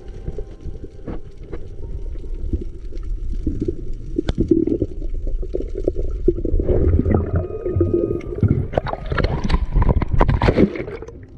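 Water gurgling and sloshing close to the microphone, a dense low rumble with many small pops and clicks that grows louder, with rushing bursts in the last few seconds.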